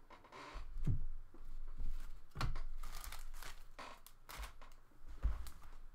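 Plastic and paper trading-card packaging being handled: irregular crinkling and rustling with a few short tearing sounds and light knocks.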